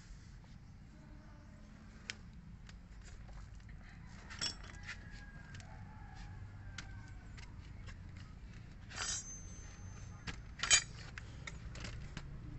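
Scattered light metallic clicks and clinks of hand tools being handled. There are short louder scrapes about four and a half and nine seconds in, and the sharpest clink comes near eleven seconds.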